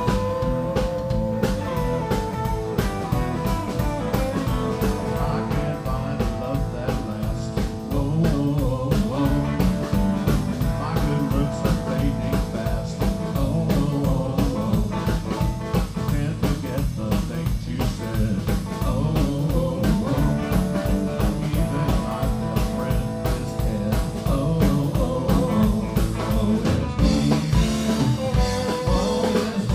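A live blues-rock band playing: a Telecaster-style electric guitar over bass guitar and a drum kit keeping a steady beat, with some bending guitar notes near the start.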